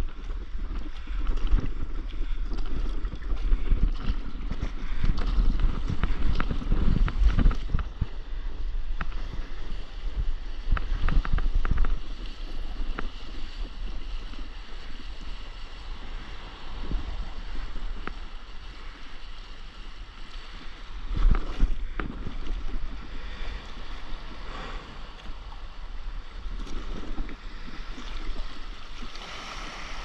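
Water washing and splashing along a paddleboard as it glides and rides a small breaking wave, with wind buffeting the microphone. The wind rumble is strongest in the first dozen seconds, and there is a loud gust about twenty-one seconds in.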